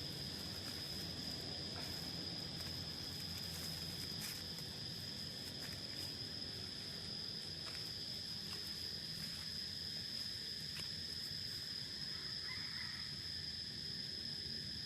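Insects in a steady, unbroken high-pitched drone, with a few faint light ticks over it.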